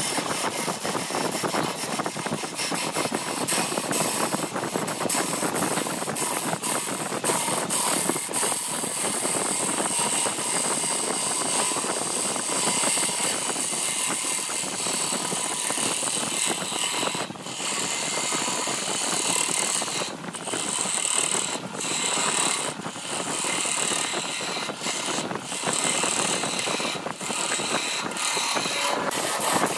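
Wood lathe running while a hand-held turning tool cuts along a spinning vase-shaped blank, a continuous rough scraping hiss. It breaks off briefly several times in the second half.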